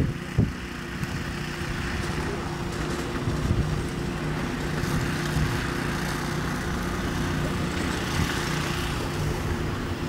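An engine running steadily: a constant low hum under a hiss.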